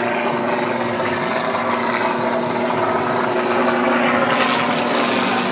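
Helicopter flying overhead, its rotor and engine a steady drone, mixed with wind on the microphone aboard a boat.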